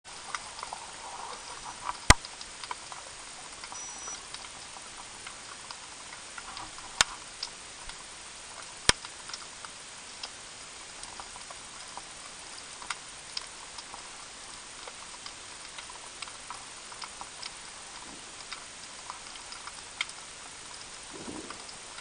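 Underwater ambience through an action camera's waterproof housing: a steady hiss full of small crackling clicks, with three sharper, louder clicks about two, seven and nine seconds in.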